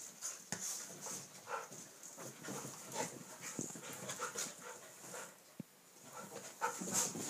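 Two dogs play-wrestling, panting and scuffling in short, irregular bursts.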